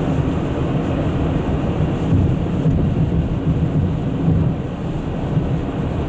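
Steady low rumble of a car driving on a wet highway, heard from inside the cabin: tyre and road noise.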